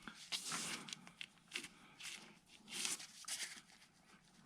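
Faint rustling and scraping from hands working front suspension parts under a car, checking them for play. There are several short scrapes, with pauses between them.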